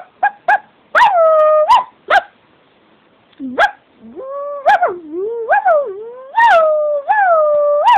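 Shih tzu giving a series of high whining calls that slide up and down in pitch, with a pause of about a second near the middle.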